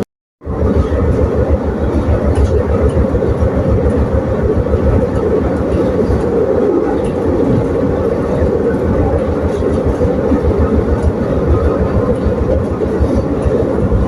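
Train running on the rails: a steady low rumble with dense rattling, after a brief silent break at the very start.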